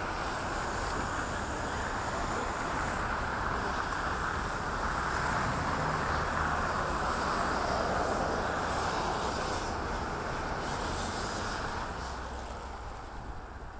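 Outdoor city ambience: steady traffic noise that swells through the middle and eases off near the end.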